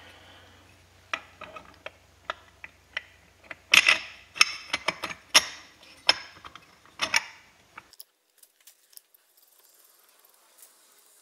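Light metal clicks and knocks as a modular two-stroke cylinder head is fitted together and slid over the cylinder studs. The clicks are irregular, the loudest cluster comes about four seconds in, and near silence follows after about eight seconds.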